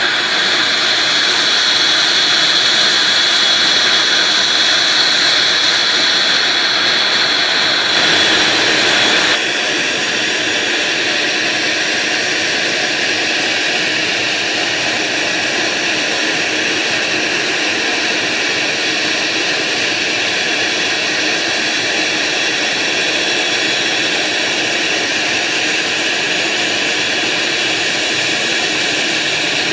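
ATR 42-500 turboprop's engine running steadily nearby: a loud, continuous turbine whine over a rushing roar. The sound shifts abruptly about nine seconds in, then carries on steady.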